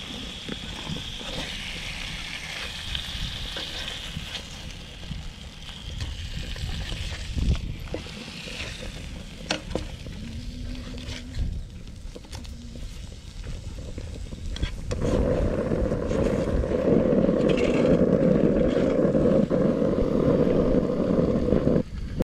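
Whole fish sizzling as they fry in oil in a large non-stick frying pan, with a few sharp scrapes and taps of a spatula on the pan as the fish are turned. From about two-thirds of the way through, a louder, steady rushing noise comes in.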